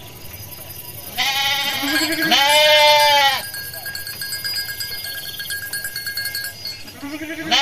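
Sheep of a local West Javan (Pantura) breed bleating in a grazing flock. There are two calls a little over a second in, the second longer and louder, and another begins at the very end.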